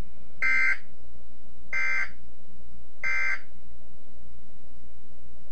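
Three short electronic alert beeps from an emergency weather alert broadcast, evenly spaced about one and a third seconds apart, over a steady low hum.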